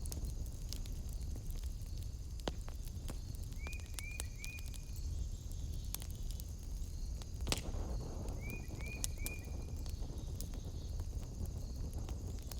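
Wood fire in a fireplace crackling, with scattered sharp pops over a low steady rumble, and one louder pop a little past the middle. A steady high trill runs underneath, and a quick series of three short chirps is heard twice.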